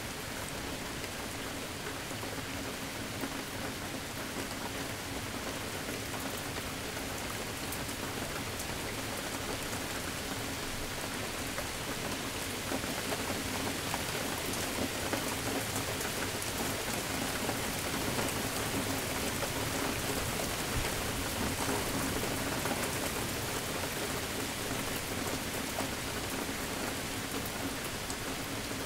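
Steady rain falling and pattering on surfaces, a dense even hiss dotted with individual drop ticks, growing a little heavier in the middle.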